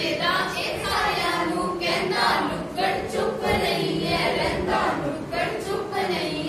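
A group of young men and women singing together without instruments.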